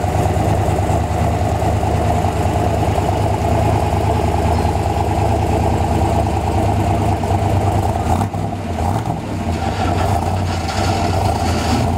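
V8 of a C2 Corvette Sting Ray with side-exhaust pipes idling, a loud, steady, deep rumble that dips and wavers briefly about eight seconds in.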